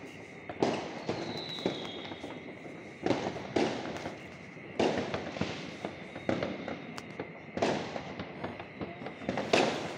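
Aerial fireworks bursting, about seven loud booms a second or so apart, each trailing off in a rolling echo, with lighter crackling between them.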